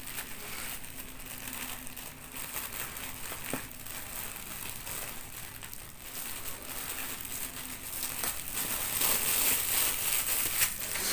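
Thin clear plastic food bags crinkling and rustling as hands untie and open them, a little busier in the last few seconds.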